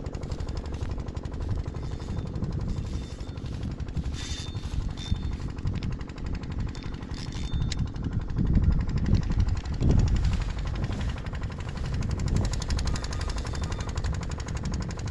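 HK6000 spinning reel clicking in a fast, continuous rattle while a hooked fish is fought on a bent rod, the drag giving line. A low rumble of wind on the microphone runs beneath it and is loudest about eight to ten seconds in.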